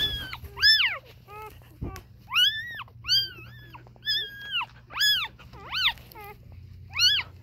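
Newborn German Shepherd–Husky puppies crying: repeated high-pitched squeals, about a dozen, each rising and then falling in pitch.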